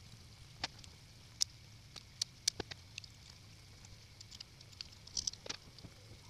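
Faint, scattered small clicks and light scrapes of a metal tool and coil wire on a rebuildable dripping atomizer's deck as fresh coils are fitted, with a short flurry of clicks about five seconds in.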